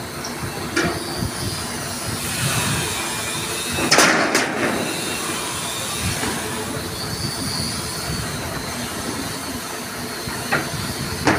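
Kato SR-250SP-V crane's diesel engine running steadily, with a short loud hiss about four seconds in.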